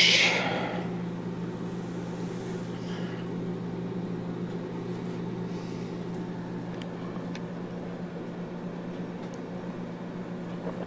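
Steady low electrical hum of a microwave oven running, with a few faint clicks from handling.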